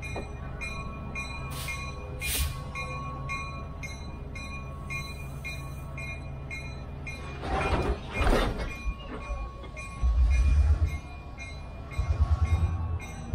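Reading & Northern 425 steam locomotive standing with a steady low hum, giving short hisses of steam about two seconds in and a longer, louder hiss about eight seconds in. Low rumbles come near the end.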